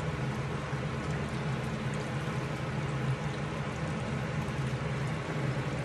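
Tomato and minced-meat sauce bubbling steadily in a wok, over a constant low hum.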